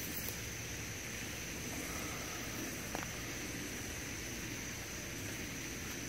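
Steady outdoor night ambience: a continuous high, even drone typical of night insects over a low rumble, with a single light click about three seconds in.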